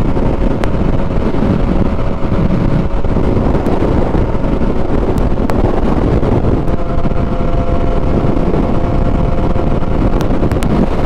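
Yamaha R6 sport motorcycle running at steady cruising speed, its engine note half-buried under strong wind rushing over the rider's microphone. The engine note shifts slightly about two-thirds of the way through.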